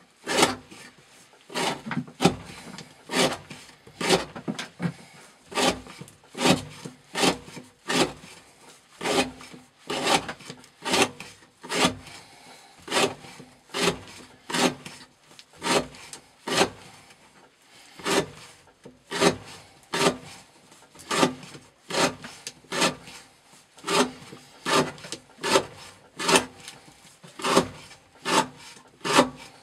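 A CPM 15V steel knife slicing repeatedly through the end of a fibre rope laid on a wooden board, a little over one cut a second. Each cut is a short rasping stroke through the fibres.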